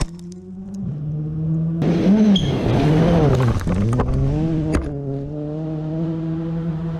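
Classic car engine idling steadily, its pitch swinging up and down a couple of times near the middle as the revs change, with a sharp click a little later.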